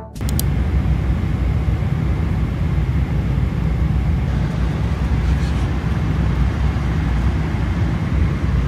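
Steady cabin noise of an airliner in flight: an even, deep rumble of engines and rushing air. A couple of faint clicks come right at the start.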